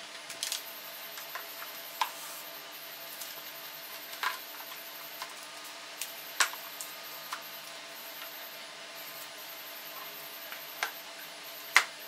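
Scattered plastic clicks and knocks as a Proton Inspira's air-conditioning evaporator core and its plastic HVAC housing are handled and fitted together, a handful of separate knocks with the loudest near the end. A faint steady hiss runs underneath.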